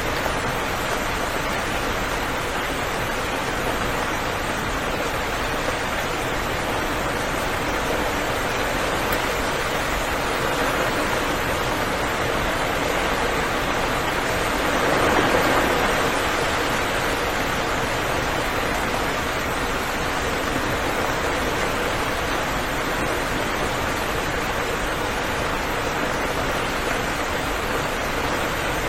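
Steady heavy rain, a dense even hiss, swelling briefly about halfway through.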